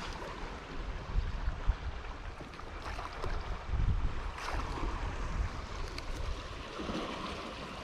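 Wind buffeting the microphone in uneven gusts over a steady rush of moving water, with a few faint clicks and knocks of handling.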